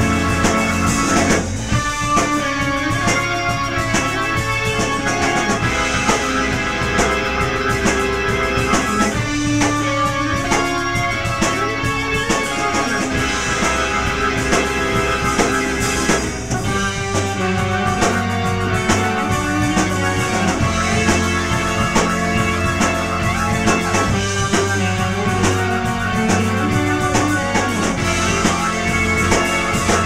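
Live rock band playing with electric guitars, keyboards and a drum kit, the texture of the playing shifting about a second and a half in and again about halfway through.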